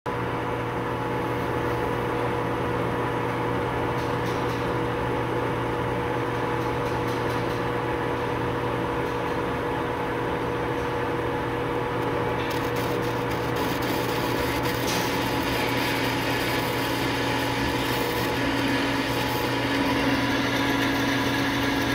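Metal lathe running, a steady mechanical hum with several held tones from its motor and gearing. About halfway through, a higher hiss joins in as the cutting tool is fed into the turning work, and near the end a lower tone comes up.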